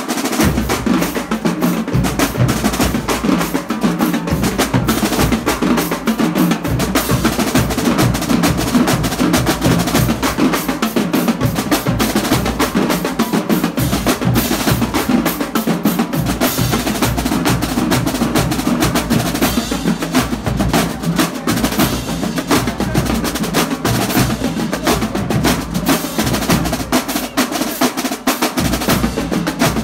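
Marching drumline playing a fast cadence: rapid marching snare drum strokes and rolls, with bass drums dropping in and out underneath.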